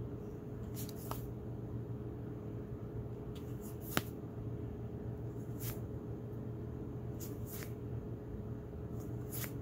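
Board game cards being flipped through by hand, the card stock giving short soft clicks and snaps about once a second, the sharpest about four seconds in, over a steady low hum.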